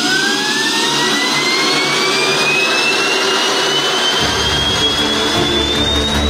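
Micro turbojet engine running on a test stand and spooling up: a whine that climbs steadily in pitch throughout, over a loud rush of air.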